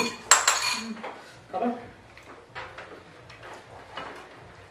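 Tableware clattering on a dining table: plates and a plastic bowl being handled and set down, with a sharp clatter about half a second in and lighter knocks after it, among a few brief murmured words.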